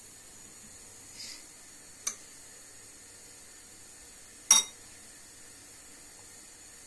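Small kitchen utensils clinking against dishware: a light click about two seconds in and a louder, ringing clink about four and a half seconds in, over a steady faint hiss.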